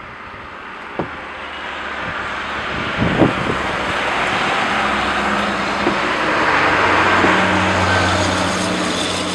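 A motor vehicle approaching on a snow-covered street: the hiss of its tyres in the snow and a low engine hum grow steadily louder, nearest near the end. There is a brief knock about three seconds in.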